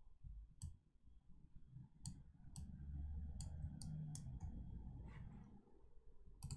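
Computer mouse clicking about seven times, single sharp clicks at uneven gaps, with a faint low rumble in the middle.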